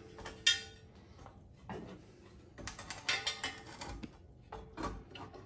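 Metal clinks and rattles of a hook and eye bolt knocking together as a cast iron skillet is hung on them by its handle: a few single clicks and a quick cluster of clinks about three seconds in.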